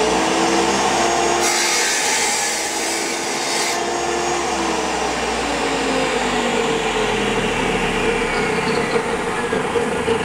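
DeWalt tile saw running with a steady motor whine. About a second and a half in, its blade grinds through a thin strip of tile for about two seconds, then the saw runs on.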